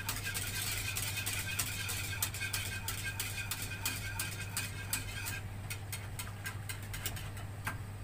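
Wire whisk ticking quickly against the sides and bottom of a metal saucepan as a milk and cornstarch cream is stirred non-stop to thicken it without lumps. The ticks thin out after about five seconds.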